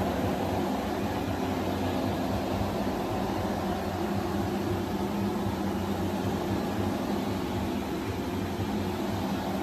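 A steady low machine hum with an even rushing noise over it, unchanging throughout.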